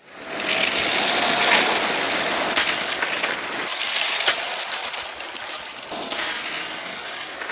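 Plastic Lego train running on plastic track, a dense clattering rattle of wheels and cars, with a few sharp clacks along the way; the rattle is loudest in the first few seconds and then eases off.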